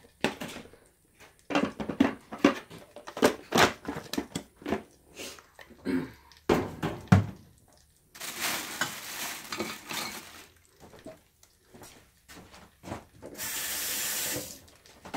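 Kitchen clatter: dishes, pots and utensils knocking and clinking, then running water from a tap in two spells, the second shorter and louder near the end.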